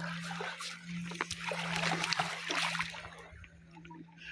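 Shallow seawater splashing and sloshing at the shore, a quick run of small splashes that eases off near the end, over a steady low hum.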